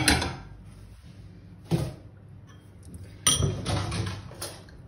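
Kitchen cookware being handled: a pan is taken away and set down. There is a sharp knock with ringing at the start, a short knock a little under two seconds in, and a longer run of clinks and knocks from about three seconds in.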